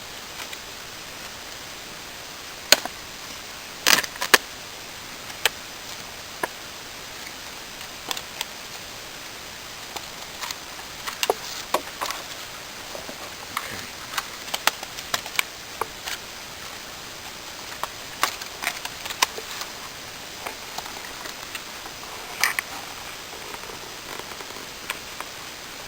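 Swiss Army knife blade carving a wooden stick: irregular sharp clicks and cuts, the loudest a few seconds in, over a steady hiss.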